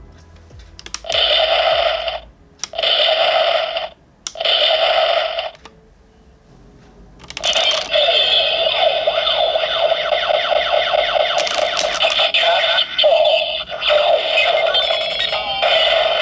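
Bandai DX Gatack transformation belt toy playing its electronic sound effects through its small built-in speaker: three identical short bursts about a second long, each followed by a click, then after a short pause a long continuous electronic sequence with sweeping, gliding tones.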